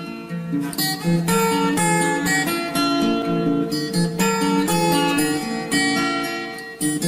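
Background music: plucked acoustic guitar playing a melody of single notes.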